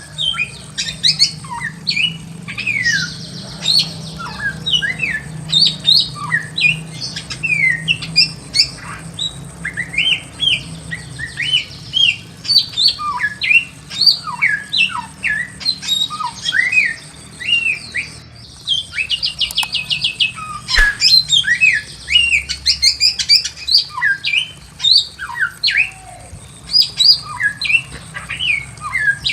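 Bare-throated whistler (samyong) singing: a rapid, varied string of short whistled notes that slide up and down, broken by fast rattling trills near the start and about two-thirds through. A single sharp click comes just after the second trill.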